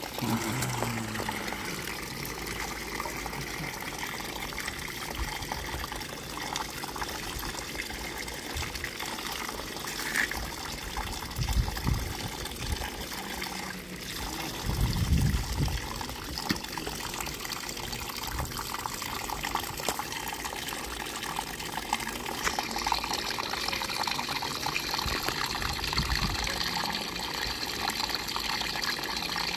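Hose water running down a small homemade cleanup sluice lined with bristle matting: a steady trickling, splashing flow, turning brighter about 22 seconds in. A few low thumps near the middle.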